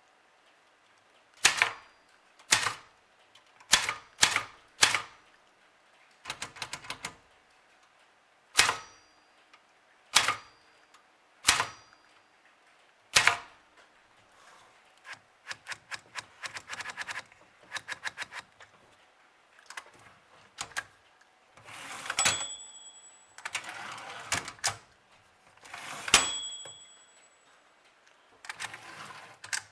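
Brother Charger 11 manual portable typewriter being typed on: sharp single key strikes at first, then quicker runs of keystrokes. Twice near the end a bell-like ring sounds within a longer rasping stretch, typical of the margin bell and carriage return.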